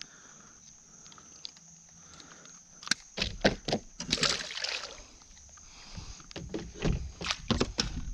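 Sharp knocks and clunks of gear being handled against a small boat's hull, starting about three seconds in and coming again in a cluster near the end, with a short rushing, splashy noise about four seconds in.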